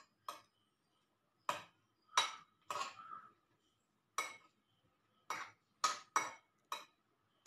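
Metal spoon clinking against a glass bowl while fruit salad is stirred: about nine short, sharp clinks at uneven intervals.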